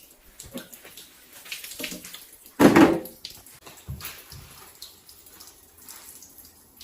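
Water splashing and dripping with small knocks and clicks, as in washing something out by hand; one much louder splash a little over two and a half seconds in.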